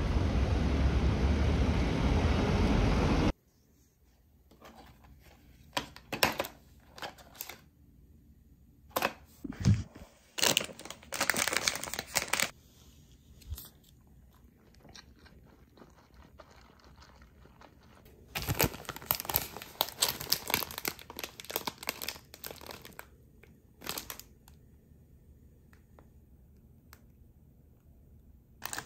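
Steady street noise for about three seconds, cutting off abruptly. Then the plastic film wrapper of a convenience-store onigiri rice ball crinkling and tearing as it is handled and opened, in irregular bursts with quiet gaps between.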